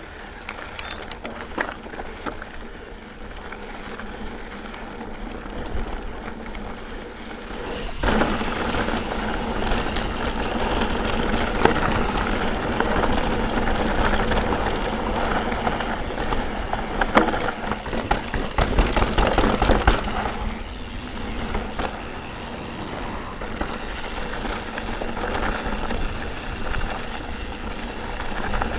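Mountain bike riding over a rough trail: a steady rumble of tyres and rattling bike with frequent short knocks, getting louder and rougher about eight seconds in.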